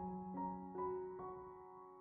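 Soft background music: a slow piano melody, single notes struck every half second or so and left to ring.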